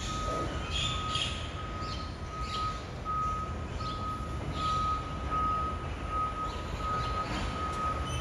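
BYD electric garbage truck's reversing alarm beeping steadily, about one and a half beeps a second, as the truck backs up toward the bins, over a low hum.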